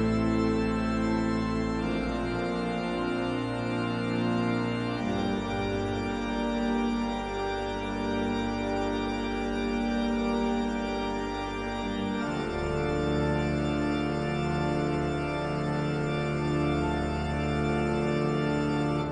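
Organ music: slow, held chords that change every few seconds, with deeper bass notes coming in about twelve seconds in.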